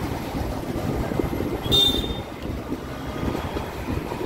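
Street traffic and vehicle engines rumbling steadily on the move. A short, loud, high-pitched squeal or honk comes about two seconds in.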